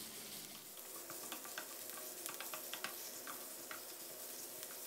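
Minced pork and diced onion sizzling faintly in a nonstick frying pan, stirred with a wooden spatula that gives scattered light scrapes and taps against the pan.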